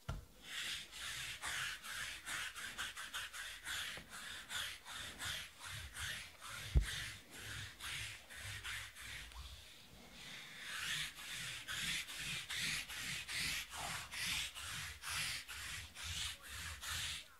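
A hand and forearm rubbing back and forth against the tabletop close to the microphone in quick, even strokes, about three a second, easing off briefly about ten seconds in before starting again. A single low thump sounds about seven seconds in.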